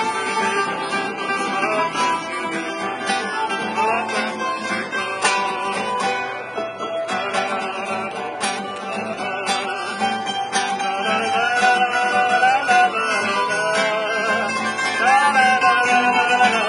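Two acoustic guitars and a harmonica playing an improvised country-style tune, the guitars picking and strumming under a harmonica melody that bends and wavers its notes in the second half.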